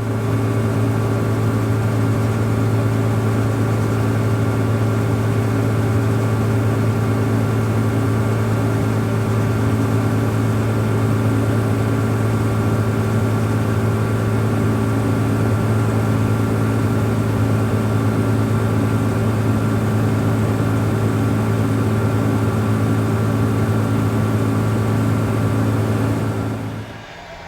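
Tractor engine pulling a grain cart, running steadily at a constant speed with a deep, even hum, fading out near the end.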